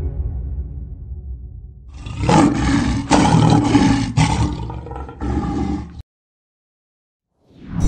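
Lion roar sound effect: a long roar in several surges that starts about two seconds in and cuts off sharply about two seconds before the end. Before it, a music cue fades out.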